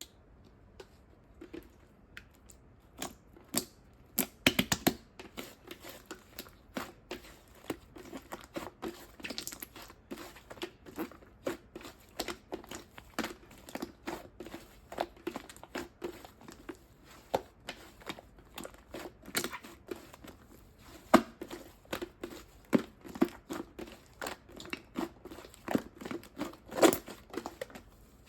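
Slime being mixed and stretched by hand, giving a run of irregular sticky crackles, pops and tearing sounds, several a second.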